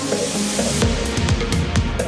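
Background electronic music: a rising hiss gives way, a little under a second in, to a steady drum beat with hi-hats.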